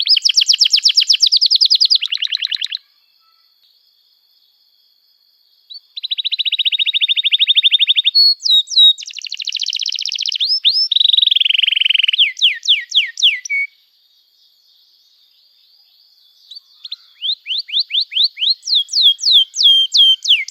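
Domestic canary singing in phrases of fast trills and rapid runs of downward-sweeping notes, with pauses of a few seconds between phrases.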